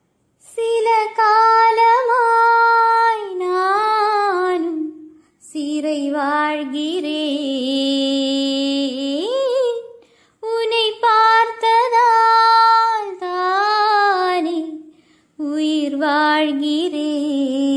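A woman singing a slow, ornamented Tamil film melody with no accompaniment. She sings long held notes in four phrases, with a short breath pause between each.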